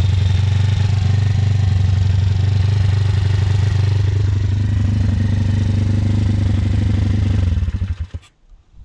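Thumpstar 140cc pit bike's single-cylinder four-stroke engine running steadily at idle with a ticking that the rider puts down to a valve adjuster nut not done up tight enough. It is switched off near the end and dies away within about half a second.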